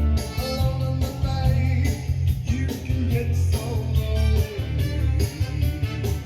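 Rock and roll music with electric guitar, a strong bass line, a steady beat and a singing voice.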